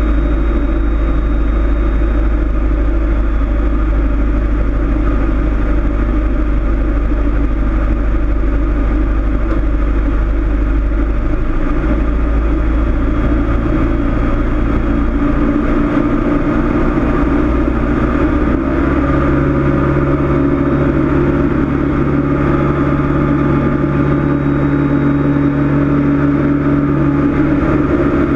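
Cessna 162 Skycatcher's four-cylinder Continental O-200 engine and propeller droning steadily in flight, heard in the cockpit. The engine note shifts slightly about two-thirds of the way through.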